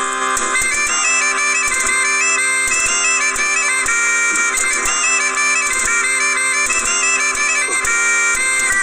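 Bagpipe music: steady drones under a quick, stepping melody.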